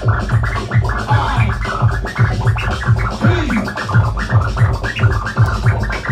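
Live Britcore hip hop: a fast, heavy breakbeat with deep bass, and a DJ scratching a record on a turntable over it in quick pitch-swept cuts.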